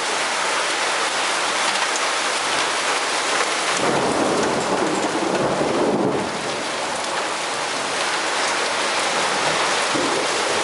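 Heavy rain falling steadily. A low rumble swells about four seconds in and fades a couple of seconds later.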